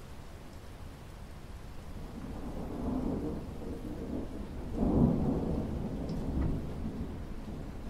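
Steady rain falling on a pool's water surface. A low rumble builds about two seconds in, is loudest around five seconds, then fades back under the rain.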